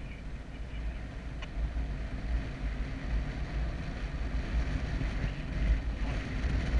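Airflow buffeting the camera microphone in paraglider flight: a steady, gusty low rumble with a hiss over it.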